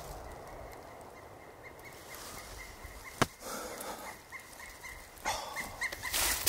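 A sharp snap about three seconds in, then close to a second of wild-turkey calling, with another short burst near the end. A faint high chirp repeats about twice a second underneath.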